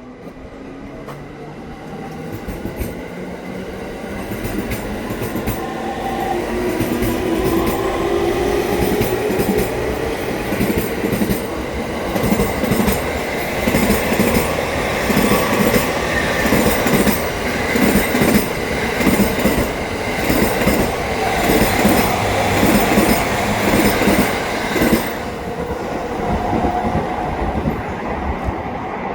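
JR East E231 series 1000-subseries electric train, two coupled sets, pulling out and accelerating: the inverter-driven traction motors whine, rising in pitch over the first several seconds, while the train grows louder. Then the wheels clatter quickly and evenly over the rail joints as the cars run past, easing off near the end.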